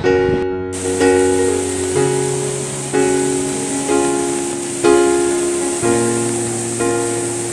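Background music: chords struck about once a second over a low held bass note, with a steady hiss underneath from just under a second in.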